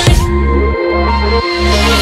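Electronic dance music with heavy, sustained bass notes that break off and restart about every two-thirds of a second.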